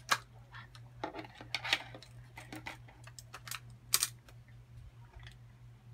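A series of light, irregular clicks and taps of small plastic tubes of glue being handled and set down on a tabletop, over a faint steady low hum.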